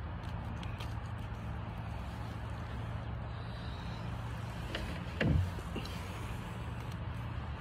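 Steady low outdoor rumble, with a few faint clicks and one short low thump a little past halfway, as honey fungus is cut and handled with a knife close to the microphone.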